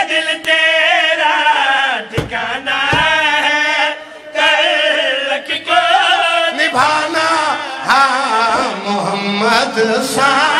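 Men chanting a devotional qasida in long, melodic held lines whose pitch slides and wavers, without clear words. Two short dull thumps come a little after two and three seconds in.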